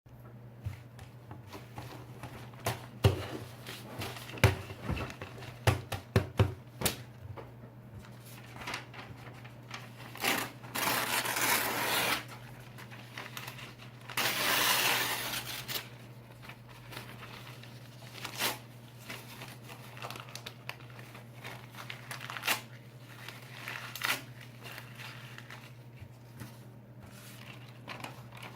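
Paper being crinkled and ripped: a run of sharp crackles in the first several seconds, then two longer tears, each a second or two long, about ten and fourteen seconds in, followed by shorter rips.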